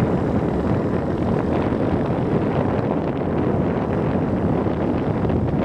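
Motorbike engine running steadily on a steep uphill climb, mixed with steady wind buffeting the microphone.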